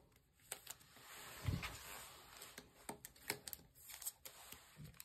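Faint handling noises of a trading card being slid into a rigid plastic top loader: scattered soft clicks and rustles, with a dull thump about a second and a half in.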